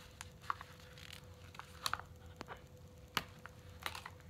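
Faint handling noises: a scattering of small clicks and rustles as hands work at a badge/wallet holder and its cardboard hang tag, over a faint steady hum.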